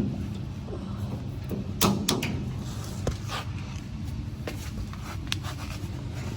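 A few sharp clicks and knocks of hand tools working on metal parts, the loudest a quick cluster about two seconds in, over a steady low hum.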